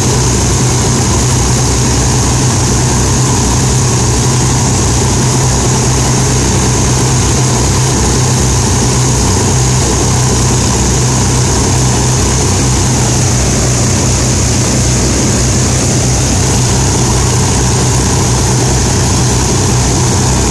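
Rolls-Royce Merlin V12 engines of an Avro Lancaster bomber running steadily during a ground run-up, a loud, unbroken propeller and engine drone.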